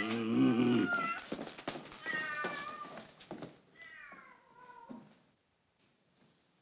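A cat meowing and yowling, about three drawn-out calls with the last one falling in pitch, mixed with a few sharp knocks.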